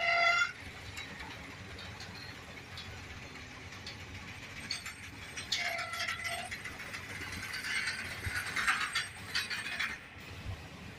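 Covered freight wagons rolling slowly past on the rails, their wheels and couplings clattering and clanking with short metallic squeals about halfway through. A horn sounds at the start and cuts off within half a second.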